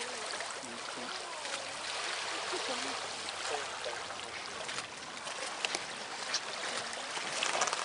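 Water washing and lapping steadily, with a few small sharp splashes in the second half, under faint voices talking.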